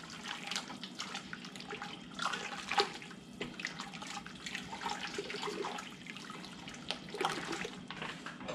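Roux and chicken broth being stirred in a stainless steel stockpot: irregular sloshing and splashing of the liquid with scattered short clicks, as the clumps of roux are worked until they dissolve.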